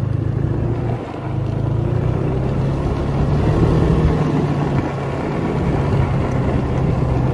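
Snowmobile engine running steadily underway, with a brief drop in level about a second in and a slight rise in the middle.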